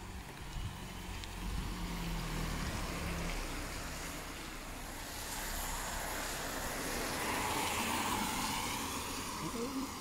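A vehicle passing on a wet road: a hiss of tyres on wet tarmac that builds from about halfway through, peaks near the end and then fades, over a faint low hum.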